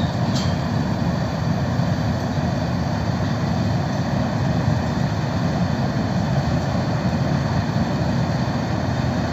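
Biomass pellet combustion furnace running with a steady, even roar.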